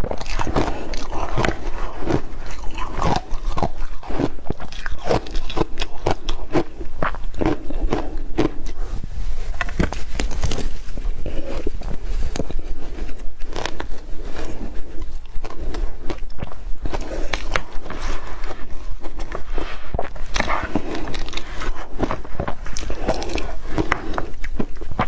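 Close-miked mouth biting and crunching yellow powdery ice, with a dense, continuous run of sharp crackly crunches.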